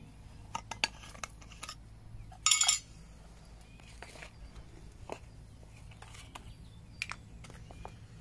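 Light metallic clinks and taps as a brass Trangia spirit burner and its lid are handled and set down on the table, with one short hissing rush about two and a half seconds in.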